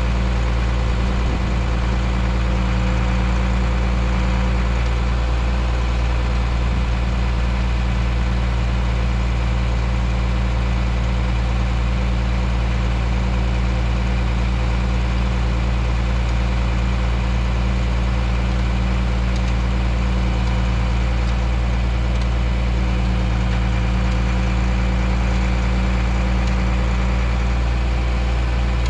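Bucket truck's engine idling steadily, running the hydraulics while the boom moves.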